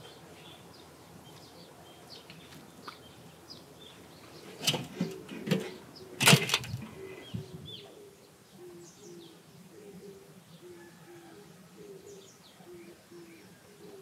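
Countryside birdsong: small birds chirping, and from about halfway on a dove cooing, a low two-note phrase repeated steadily. Around five to seven seconds in, a short burst of several loud thumps and rustles stands out above the birds.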